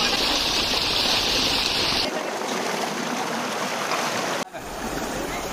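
Water gushing steadily from a pump pipe into a concrete tank and pouring out of its outlet spout. The rushing changes abruptly about two seconds in, turning duller, and again briefly dips near the end.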